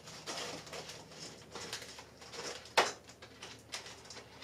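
Clear plastic tube package of Christmas ball ornaments being handled and opened: crackling plastic and small clicks, with one sharp, loud click a little under three seconds in.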